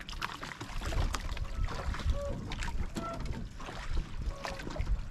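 Wind buffeting the microphone over water slapping against a small outrigger boat's hull, with scattered light knocks.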